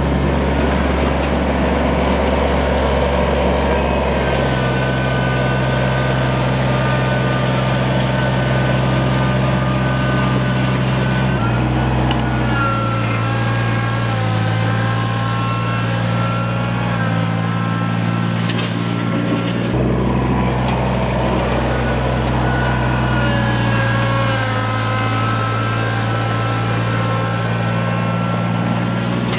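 Kubota BX2370 compact tractor's three-cylinder diesel running as the tractor drives and grades gravel with its front loader. The engine note steps up and down several times, with a fainter whine rising and falling above it.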